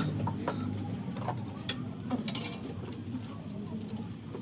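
A few scattered light clicks and taps over a low steady hum.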